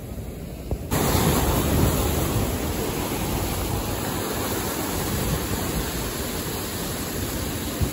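Ocean surf washing and churning over the rocks of a jetty, a steady rushing noise that jumps up suddenly about a second in.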